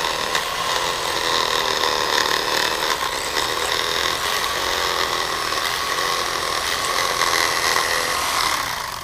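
Corded electric fillet knife running with a steady whine, its blades slicing a blue catfish fillet from behind the head toward the tail. The motor stops near the end.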